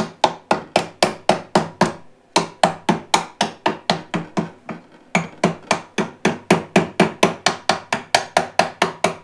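Mallet tapping a tight mounting bolt home through the engine mount into its welded base frame. The blows are quick and sharp, about four a second, with two brief pauses. The bolt is being driven in because the frame's hole shifted a little during welding.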